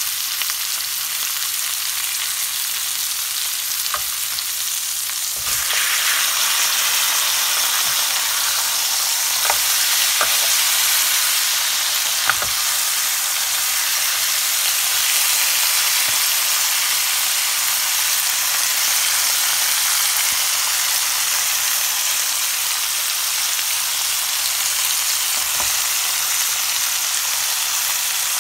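Marinated pork chops sizzling in a ridged cast-iron grill pan as a steady hiss that grows louder about five seconds in. A few light clicks come from tongs moving the chops.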